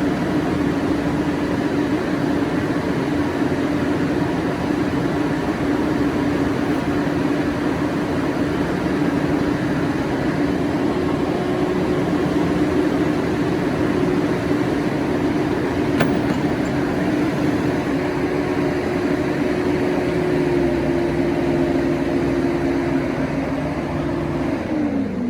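Heavy construction machine running steadily under power, with a strong held engine tone. It begins to wind down just at the end, the tone falling in pitch.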